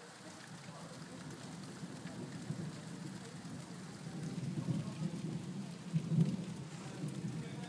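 Thunder rumbling over steady rain from a supercell storm. The rumble swells about halfway through and is loudest about six seconds in.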